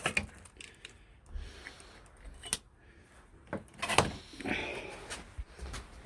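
Hard plastic trim and van bodywork being handled and fitted by hand: scattered clicks and knocks, the loudest about two and a half and four seconds in, with short scrapes between.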